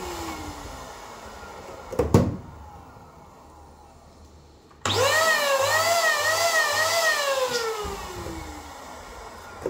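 Electric balloon pump blowing up latex balloons: it cuts in suddenly about five seconds in with a whine that wavers up and down, then slides lower in pitch and fades near the end. Earlier there is a quieter falling tone and a sharp click about two seconds in.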